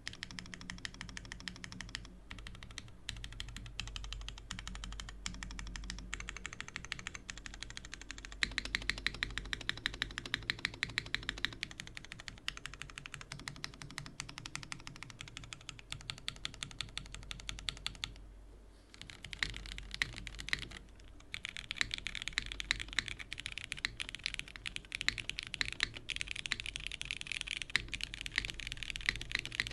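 Custom mechanical keyboard (Merisi 500C/M TKL with Cherry MX2A Nixie linear switches on a polycarbonate plate, doubleshot keycaps) being typed on and key-spammed. The keystrokes are rapid and dense, with two brief pauses past the middle.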